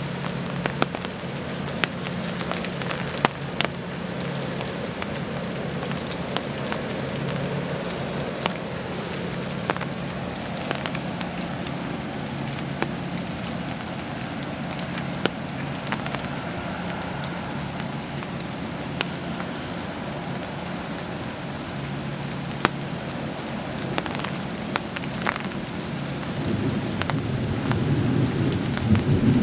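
Steady rain, with scattered drops ticking sharply on a nearby surface and a low steady hum underneath. About 26 seconds in, a low rumble of thunder builds and grows louder.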